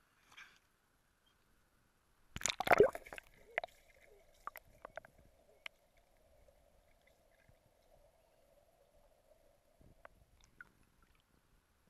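River water splashing and gurgling around a waterproof action camera: a loud splash about two and a half seconds in, then muffled underwater sound with scattered bubble pops and a faint steady hum, and a few more pops and gurgles near the end.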